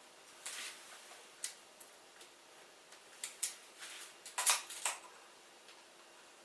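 Light clicks and taps from a tape measure and timber being handled while measuring, with a cluster of sharper clicks about four and a half seconds in.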